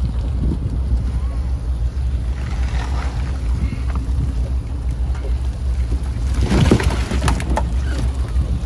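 Small trawl fishing boat's engine running with a steady low drone, under the rustling and knocking of a trawl net being handled on deck. About two-thirds of the way through comes a louder, brief rush of noise as the catch spills out of the net onto the deck.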